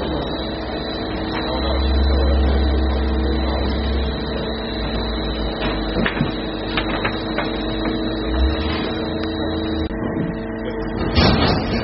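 Timber sorting and stacking line machinery running: a steady mechanical hum with a high whine, a low rumble that swells twice, and scattered clicks and knocks. The whine stops about ten seconds in, and a louder burst of noise comes near the end.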